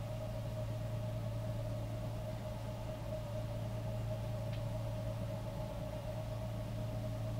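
Ambient electronic synthesizer drone: a steady low hum under a held mid-range tone, barely changing.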